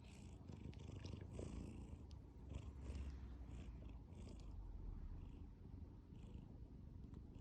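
Domestic cat purring quietly, a steady low pulsing rumble, as it settles toward sleep.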